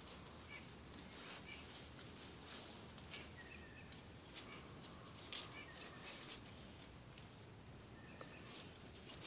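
Dry maple leaves falling and landing, making faint, irregular light ticks and rustles over a quiet outdoor background.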